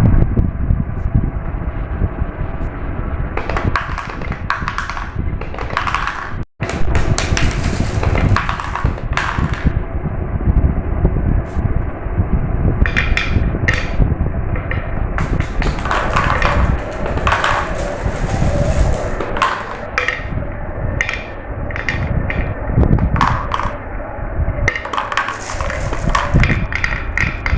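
Marbles rolling down a marble run: a continuous rolling rumble with frequent clicks and clacks as they knock against the track and each other. The sound breaks off for an instant about six and a half seconds in.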